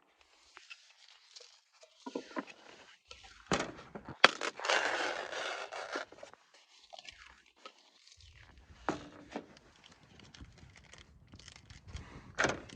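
Irregular handling noises: crinkling, scraping and scattered knocks, with a longer, louder rustle about four to six seconds in and a sharp knock near the end.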